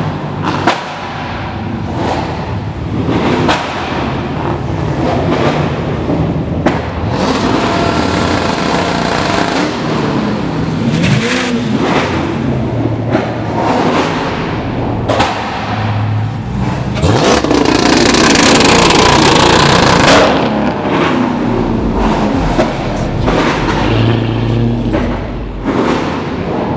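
Car engines and exhausts as cars drive by and rev. There are rising revs partway through and a loud surge of noise lasting about three seconds past the middle.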